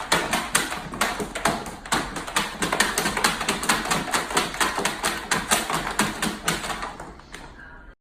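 Rapid, uneven tapping or clicking, about four sharp taps a second, fading away near the end.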